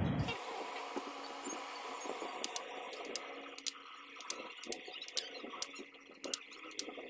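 Small sharp clicks and light knocks of a vacuum cleaner motor assembly being handled and fitted together by hand, more frequent in the second half, over a faint steady hiss.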